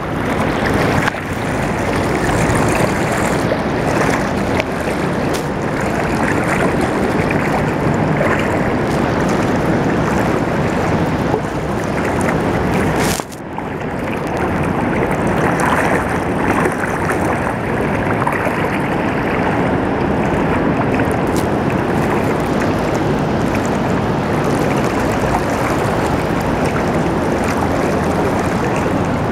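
Steady rushing water noise as a boat moves along a river, with a brief dip about thirteen seconds in.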